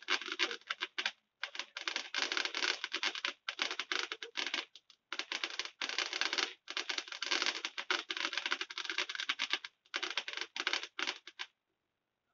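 Fireworks crackling: dense runs of rapid sharp pops with short gaps between, stopping about eleven and a half seconds in.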